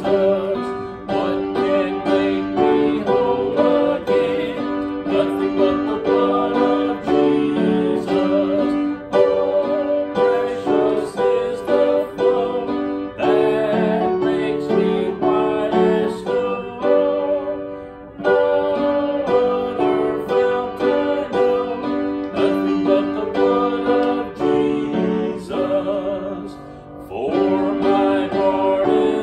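Instrumental music led by piano with guitar, in held chords that change about once a second, with short pauses between phrases.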